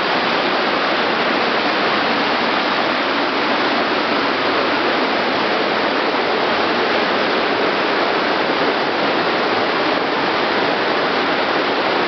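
A fast river running high over rapids: a steady, even rush of water.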